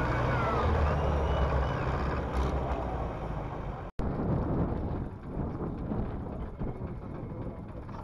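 Zetor tractor diesel engine running loud and steady. The sound cuts out for an instant about four seconds in, and after that the engine is quieter and rougher.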